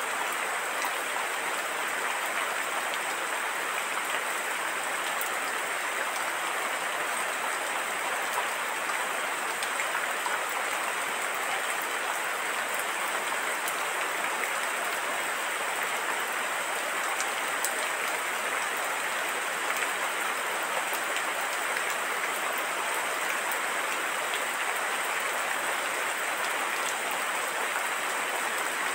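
Steady rain falling: an even hiss with a few faint drop ticks scattered through it.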